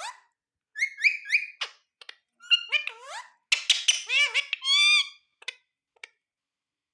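Ringneck parrot vocalising in several groups of short calls that slide up and down in pitch. The busiest and loudest run comes about three and a half to five seconds in, followed by a couple of faint clicks.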